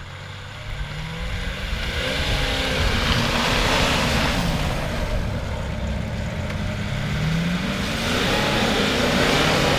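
4x4 engine revving hard in two rising surges, over a loud hiss and rumble of tyres working on loose ground, as the vehicle struggles to climb a slippery slope.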